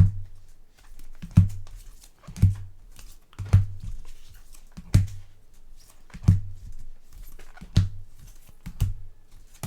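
Trading cards in plastic sleeves being handled and set down one after another on a table: a soft tap with a plastic crinkle about once a second.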